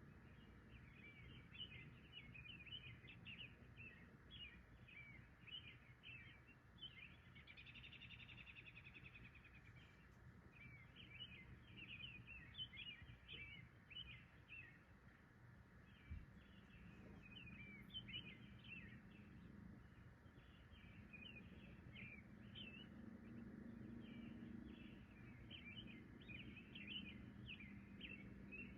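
Faint birdsong: an unbroken run of short, high chirps, with one longer buzzy call about seven seconds in. A faint low hum comes up in the second half.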